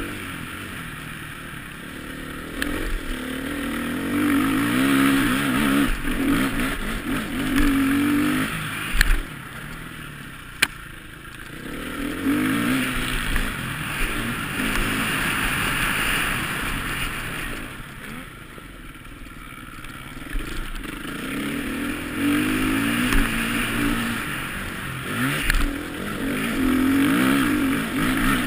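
Motocross bike's engine revving hard and dropping off again and again, heard from the bike itself with a hiss of air rush; it eases off twice before picking up again. A few sharp knocks cut through over the bumps.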